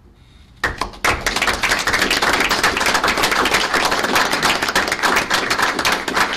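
Applause from a small group of people clapping, starting suddenly about half a second in and going on thickly.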